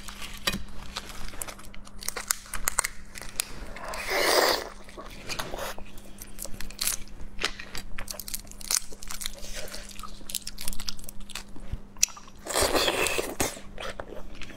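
Close, crisp crackling and snapping of whole red shrimp shells being pulled apart by hand, with chewing and mouth sounds. Two longer noisy bursts come about four seconds in and again near the end, over a faint steady low hum.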